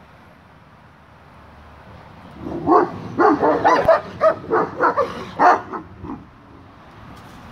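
Tibetan Mastiffs barking in a quick run of about ten short barks, starting a couple of seconds in and lasting about three seconds, as the dogs play-fight.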